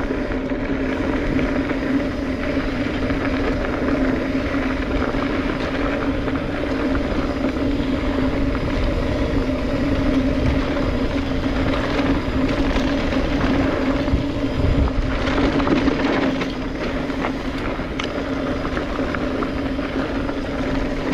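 2021 Specialized Stumpjumper EVO Comp 29 mountain bike rolling over a dirt trail, heard from a chest-mounted camera: continuous tyre and rattle noise over a steady hum, with short knocks from bumps.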